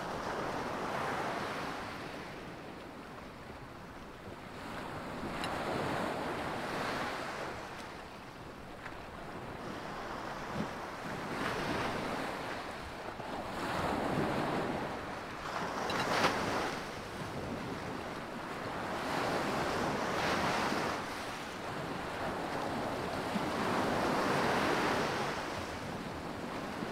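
Sea waves breaking and washing up a pebble beach, swelling and fading every few seconds, with wind on the microphone and a few light clicks.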